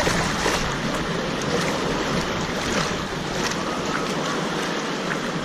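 Water in a wave pool washing and sloshing, a steady noisy wash, with faint distant voices.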